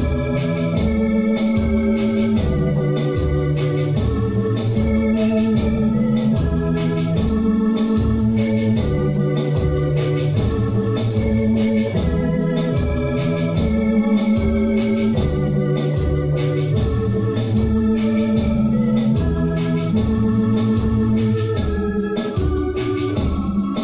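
Electronic keyboard played with an organ voice: held chords and a moving bass line over a steady, evenly repeating beat, a church offertory hymn played as an instrumental with no singing.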